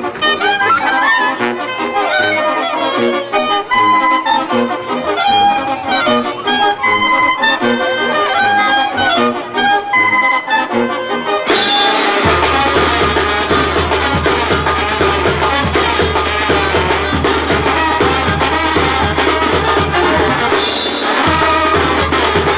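Mexican banda brass band playing a lively tune on trumpets, trombones and sousaphone with drums. About eleven seconds in, the sound cuts abruptly to fuller, denser dance music with a heavy steady bass.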